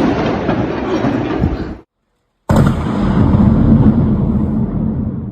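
Loud thunder rumbling. It cuts off abruptly a little under two seconds in and, after a moment of dead silence, a second heavy peal of thunder starts and rumbles on.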